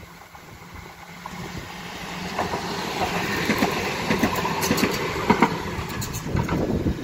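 A Dortmund Stadtbahn light-rail car (Stadtbahnwagen B) passing close by on ballasted track: its rumble and wheel hiss build over the first few seconds, with several sharp clicks of the wheels over the rail joints as it goes by, then ease slightly near the end.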